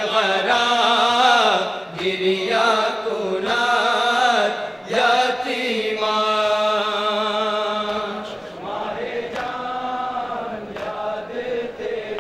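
A group of men chanting an Urdu noha (Shia lament) through a sound system, with long held, wavering notes.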